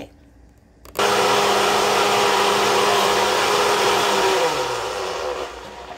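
Countertop blender switched on with a click about a second in, its motor running steadily as it blends a fruit smoothie. Near the end it is switched off and the motor's hum falls in pitch as it spins down.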